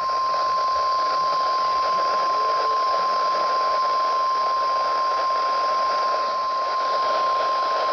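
NOAA Weather Radio 1050 Hz warning alarm tone: one steady, unbroken high tone, heard through a weather radio receiver over a hiss of static. It is the attention signal that announces a new warning message.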